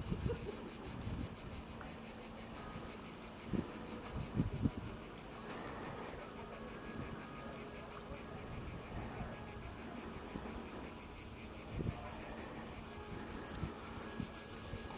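Insects chirring steadily, a high, rapidly pulsing trill, with a few brief low bumps.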